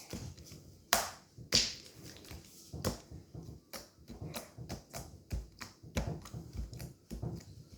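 Hands working sticky homemade slime, giving irregular wet clicks and snaps as it is pulled and pressed, with a few louder snaps in the first three seconds.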